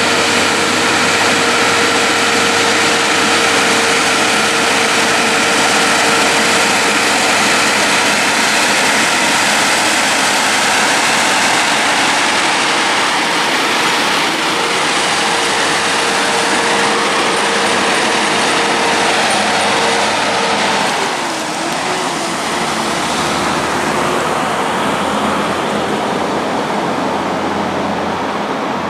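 Heavy-haulage prime movers' diesel engines and their many tyres passing close while hauling an oversize load on multi-axle trailers: loud, steady engine and road noise with a held engine tone. About two-thirds of the way through the tone dips and the noise eases a little as the convoy moves away.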